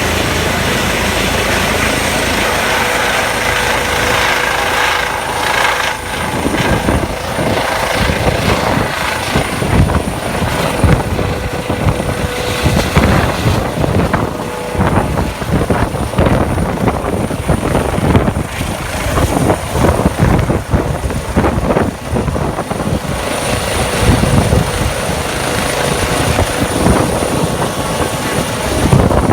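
Airbus EC135 twin-turbine helicopter at high power. The turbines give a steady high whine, and from about six seconds in the main rotor's rapid beating comes in with a loudness that surges up and down, as at lift-off.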